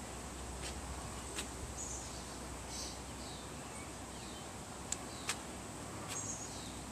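Outdoor ambience: birds chirping faintly now and then over a steady high hiss, with a few sharp clicks. The loudest are two clicks close together about five seconds in.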